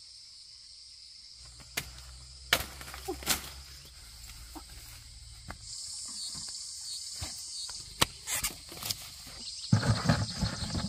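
Insects chirping steadily, with a few scattered sharp knocks, then a cluster of short, loud, low sounds in the last second.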